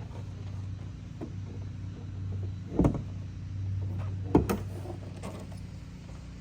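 Two loud clunks from the car body about a second and a half apart, the second the louder, as the hood of a 2018 Mustang GT is released and opened, with a few lighter knocks around them over a steady low hum.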